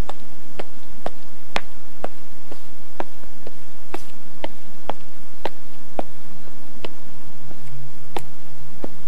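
Loud steady hiss, like static, with sharp clicks about twice a second.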